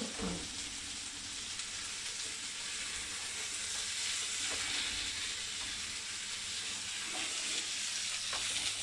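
Chopped courgettes sizzling hard in oil in a frying pan over a high gas flame, stirred and tossed with two wooden spoons. It is a steady hiss of very high heat, searing and browning the pieces without letting them give off water.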